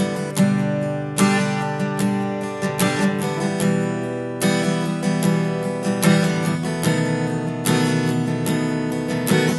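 Solo acoustic guitar strumming the chords of a song's intro, each stroke left to ring into the next.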